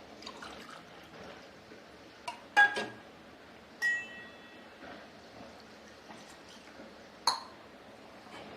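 Kitchen vessels clinking as they are handled: a sharp clink a little after two and a half seconds, a short ringing tone about a second later, and another clink near the end.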